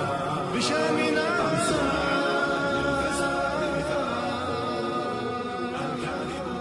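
Arabic nasheed: unaccompanied male voices chanting a wordless melody, fading out at the end.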